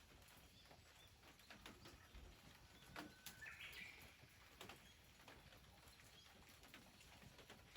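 Near silence with scattered faint ticks and one short bird call about three seconds in.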